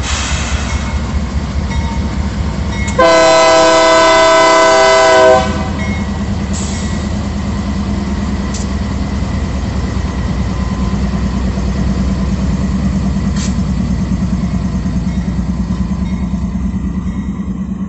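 A GE AC44i diesel-electric freight locomotive passes close by, its engine running with a deep steady throb. About three seconds in, a locomotive air horn sounds one long chord of several tones lasting about two and a half seconds. A few sharp clicks come after it.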